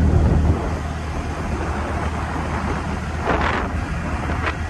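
A vehicle driving on a wet road, heard from on board: a steady low engine and road rumble with tyre hiss and wind noise. A brief whoosh comes about three seconds in, and a short click near the end.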